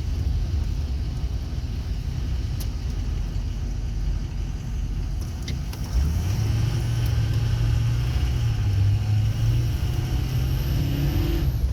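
Road vehicle driving, heard from inside the cabin: steady low engine and road rumble. About six seconds in it gets a little louder, with a clearer engine note that holds and creeps slightly higher, as when the vehicle picks up speed.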